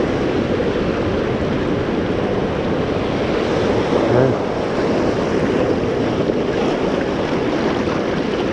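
Small waves of shallow surf washing and fizzing over sand and reef rock, steady throughout, with wind buffeting the microphone and a brief low bump about four seconds in.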